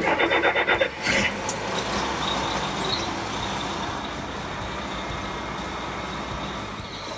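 Liebherr LTM 1095-5.1 mobile crane's diesel engine being started: rapid cranking pulses for just under a second, a burst as it catches about a second in, then steady running at idle.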